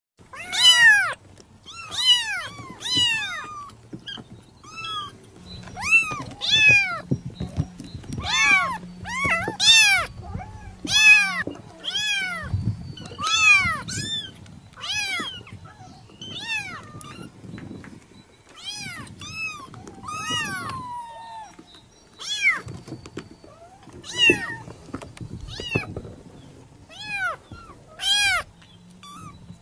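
Kittens meowing over and over: short, high-pitched calls that rise and fall in pitch, roughly one a second.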